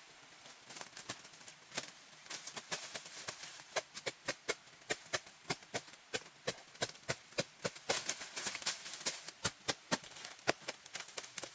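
A quick, irregular run of sharp taps and clicks, several a second, starting less than a second in.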